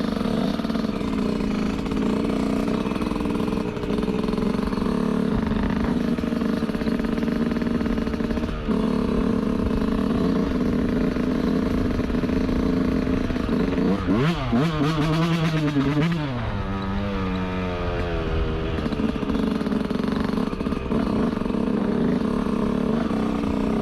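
Yamaha YZ125 single-cylinder two-stroke dirt bike engine running under way at a fairly steady pitch. About two-thirds through, the throttle is worked quickly, and the pitch rises and falls several times before settling lower.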